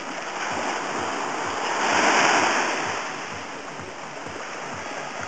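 Small sea wave washing up the beach, the surf swelling to its loudest about two seconds in and then ebbing away.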